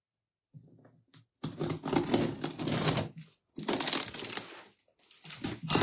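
A cardboard box's packaging being torn open by hand, with two stretches of ripping and crinkling.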